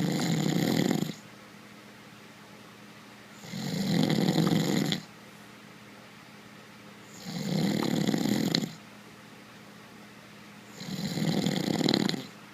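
A man snoring in his sleep: four snores, one about every three and a half to four seconds, each lasting over a second.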